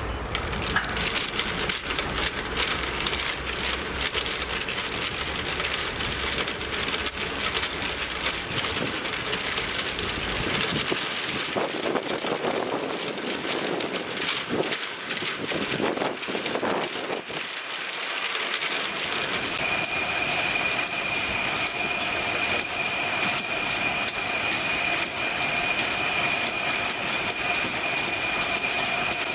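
Automatic 48-head air washing machine for bottles running, with a continuous rattle and clatter of bottles moving through it. A low rumble drops out about eleven seconds in, and from about twenty seconds a steady high whine joins the clatter.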